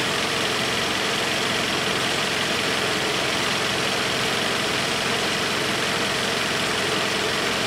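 Toyota RAV4's 2.0-litre four-cylinder petrol engine idling steadily at operating temperature, heard from beneath the car.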